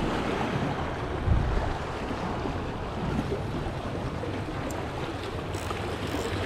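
Sea surf washing with wind rumbling on the microphone.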